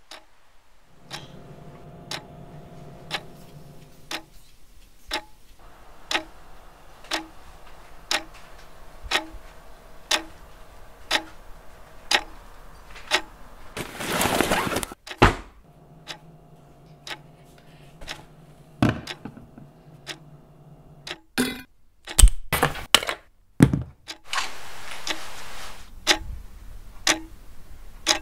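A clock ticking loudly about once a second, with a steady hum beneath the ticks for much of the time. Around the middle there is a short rasp, like a backpack zipper being opened. A few sharp knocks follow later.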